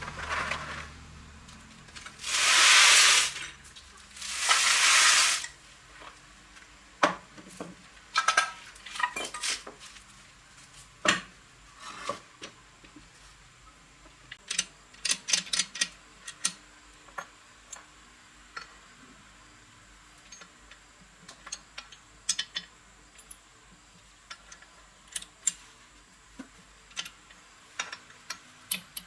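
Two hissing sprays of about a second each, a second apart, then a long run of light metallic clinks and clicks as small metal parts and tools are handled.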